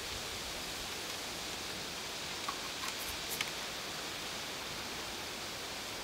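Steady rustling hiss of apple-tree leaves, with a few light clicks around the middle.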